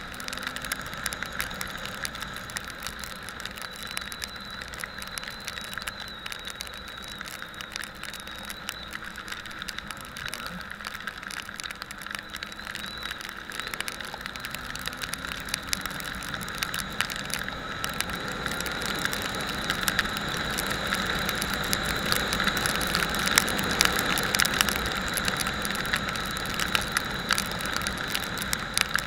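Motorcycle on the move, its engine running under a steady rushing noise, getting louder about two-thirds of the way through.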